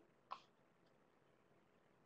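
Near silence: room tone, with one brief faint sound about a third of a second in.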